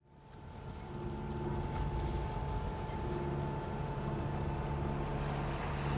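Hunter 50 sailboat underway: wind and water rushing past with a steady low hum, fading in over the first second.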